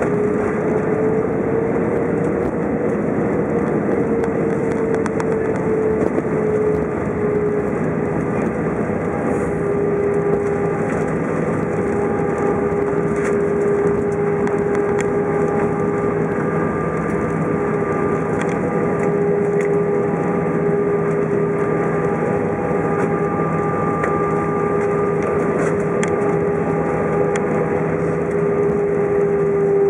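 Airbus A320 cabin noise on the ground after landing: the jet engines' steady roar with a whining tone that rises slightly a few seconds in and then holds steady.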